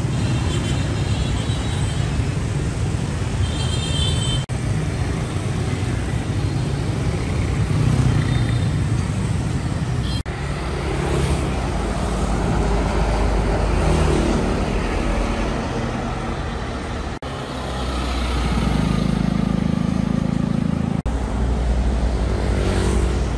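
Street traffic in several short clips: box truck engines and motorbikes running and passing, a steady rumble that shifts at each cut. Brief high horn beeps sound near the start and about four seconds in.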